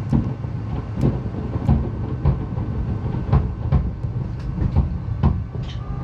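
Fireworks finale: a dense, irregular barrage of booms and bangs, roughly two a second, over a continuous low rumble, heard from inside a boat's cabin.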